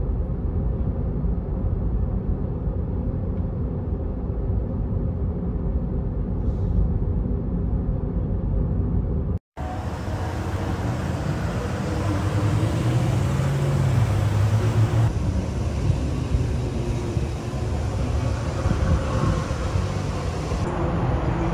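Steady low road rumble inside a moving car. About nine and a half seconds in it cuts to a brighter steady outdoor noise, with a low hum swelling briefly a few seconds later.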